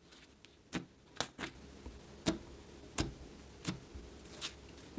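Clay-based butter slime being pressed and poked with fingertips, giving a series of small sticky clicks and pops at an uneven pace, roughly one every half second to second.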